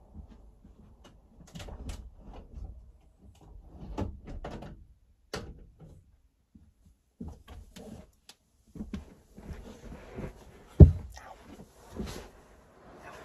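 A string of clicks, knocks and rustles from objects being handled, with one loud thump about eleven seconds in.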